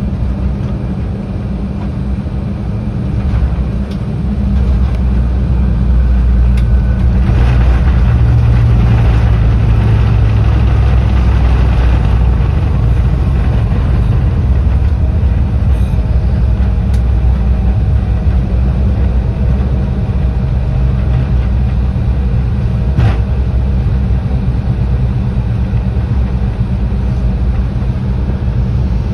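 Inside the cabin of an Embraer E175 on its landing rollout: the GE CF34-8E jet engines and the airframe make a steady low rumble. The engine noise swells about four seconds in and stays up as the jet slows on the runway.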